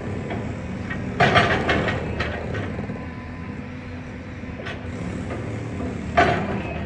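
Excavator's diesel engine running steadily, with crunching, clattering bursts of demolition debris breaking and falling about a second in and again near the end.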